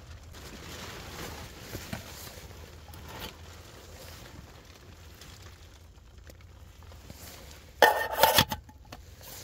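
Aluminium camping-pot lid clattering as it is set back onto the pot about eight seconds in. Before that there is only a faint low hum with a few soft ticks.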